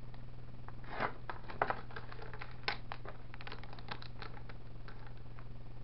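A plastic bag crinkling and rustling with a series of short clicks as an ESC board is unwrapped by hand, over a steady low hum.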